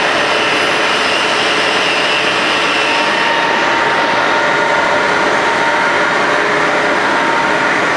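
Steady, loud noise of a running gypsum board production line's machinery: an even, continuous din with faint steady whines running through it.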